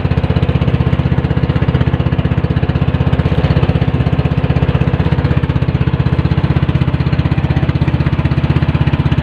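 Small fishing boat's engine running steadily at cruising speed, a fast even chugging beat.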